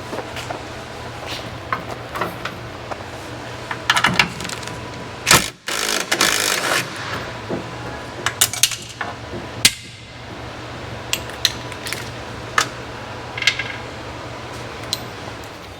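Scattered metallic clinks and knocks of hand tools and loose bolts and hardware being handled during a Humvee body teardown, with a louder clattering burst about five seconds in, over a steady low hum.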